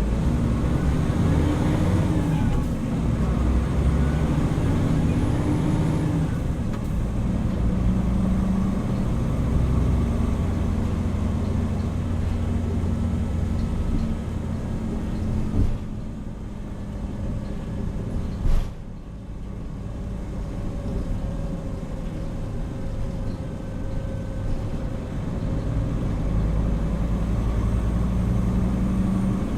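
Hino Rainbow HR city bus running, its diesel engine rising in pitch as it pulls through the first few seconds, then steady. It goes quieter about halfway, with two sharp knocks, and builds again near the end.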